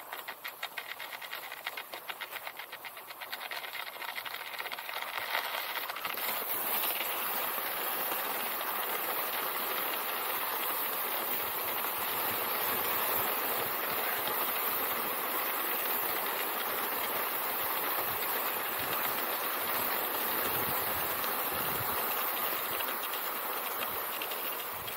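Fischer classic cross-country skis running in groomed snow tracks. A fast, rattling clatter in the first few seconds gives way, about six seconds in, to a steady loud hiss of the skis gliding over the snow.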